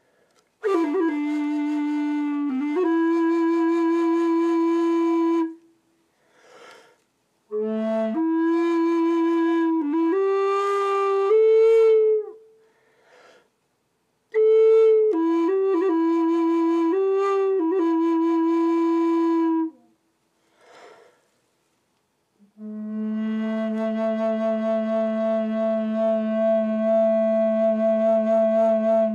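Wooden end-blown flute in A playing a slow melody in four phrases, with short breaths between them, ending on a long low held note that pulses gently. The player suspects some of the flute's breath air was hitting the close microphones.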